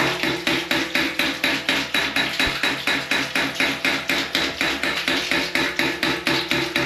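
Hydraulic ram pump cycling: its swing check (waste) valve slams shut about three times a second, each knock followed by a spurt of water from the valve. The beat is steady and even, the sign that trapped air has been cleared from the drive pipe and the pump is running normally.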